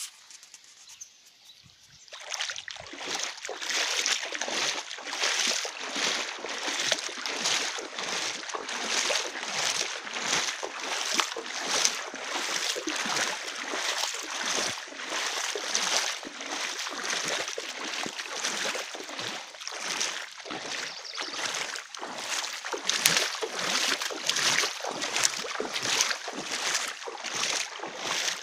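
Floodwater splashing in a steady rhythm, about two splashes a second, as someone moves through knee-deep water. It starts about two seconds in.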